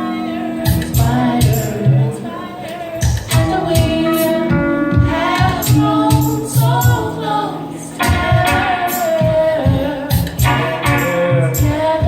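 Music with singing over a steady drum and bass beat, with cymbal or tambourine hits.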